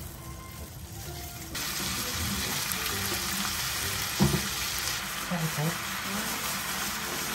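Red-pepper-marinated pork sizzling as it fries in hot oil in a nonstick wok, the sizzle starting about one and a half seconds in and holding steady while it is stir-fried with a spatula. A single knock a little past four seconds in.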